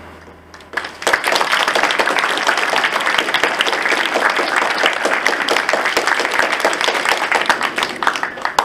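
Audience applauding after a song, the clapping starting about a second in as the last low note of the music fades and breaking off suddenly near the end.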